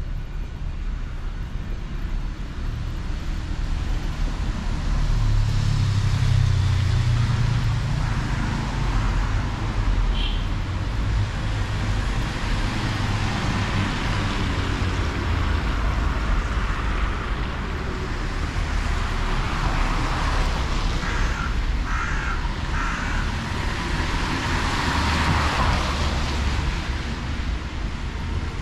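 City street traffic on a wet road: a steady low rumble with cars passing, their tyres hissing on the wet asphalt, swelling a few seconds in and again near the end.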